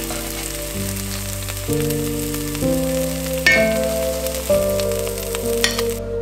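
Tomato slices frying in oil in an enamelled pan, a steady sizzle, with metal tongs clinking against the pan twice; the sizzle cuts off just before the end. Background music with slow, sustained chords plays underneath.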